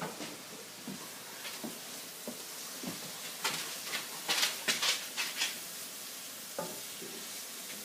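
Sliced zucchini, summer squash and peppers sizzling in olive oil in a frying pan, a steady hiss. A utensil stirring and scraping the pan makes a run of sharp clicks and scrapes in the middle.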